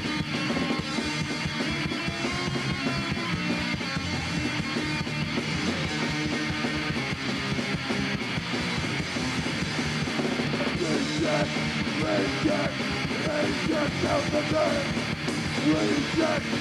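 Punk rock band playing, with electric guitar, bass and drums, in a passage without words.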